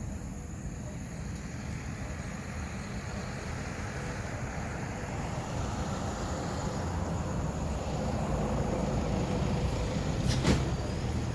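Steady low background rumble, like distant traffic, growing slightly louder, with a single sharp click near the end.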